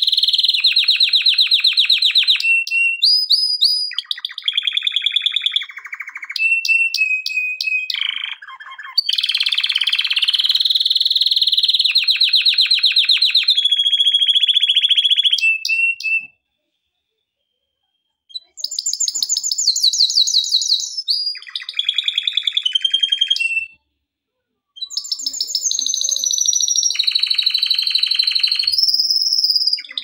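Male domestic canary singing in full song: a run of rapid trills and rolls, one phrase after another, each at a different pitch. The song breaks off twice, once just past halfway and again about four-fifths of the way through.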